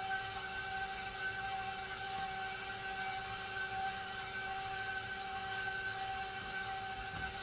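A steady machine hum with a constant high whine over it, unchanging in pitch and level.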